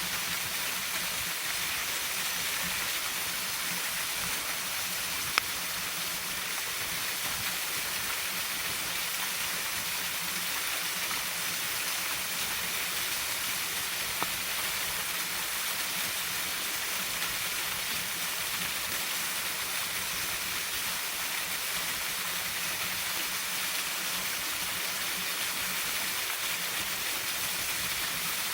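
Waterfall's steady rushing water, with two single sharp pops, about five seconds and fourteen seconds in.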